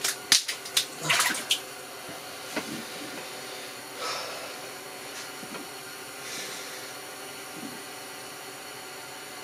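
Water splashing in an ice-fishing hole: a quick run of sharp splashes and sloshes in the first second and a half, a weaker one about four seconds in, then a steady hiss.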